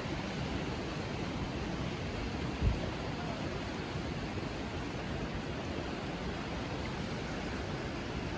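Steady rushing noise of wind and surf at the shore, heaviest in the low end, with one brief low thump of a wind gust on the microphone a little under three seconds in.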